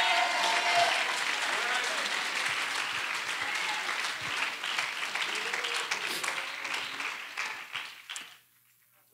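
Congregation applauding, with a few voices calling out among it; the clapping thins and dies away about eight seconds in.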